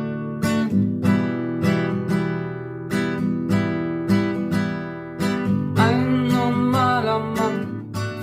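Acoustic guitar strummed in a steady rhythm, about two strums a second, as the intro of a song. A singing voice comes in about six seconds in.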